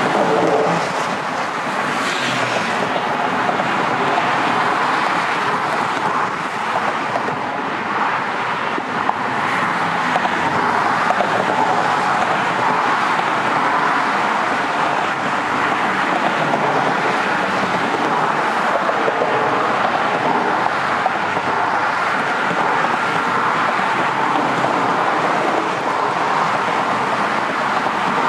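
Steady freeway traffic noise, a continuous even rush without distinct events.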